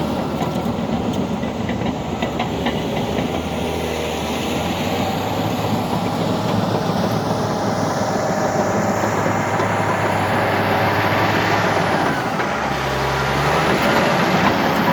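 CAT D8T bulldozer at work, its heavy diesel engine running steadily with the metallic clatter of steel tracks. The engine note shifts about two-thirds of the way through.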